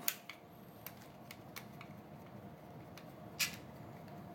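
Light clicks and taps of small metal and plastic parts being handled at an airsoft AEG's pistol grip while it is worked with a 2 mm hex key, with one sharper click about three and a half seconds in. A faint steady hum runs underneath.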